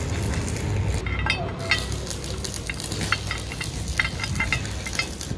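A cloth rag rubbing and wiping a truck tie rod end's metal ball stud and rod, with small scattered clicks of metal, over a steady low hum in the background.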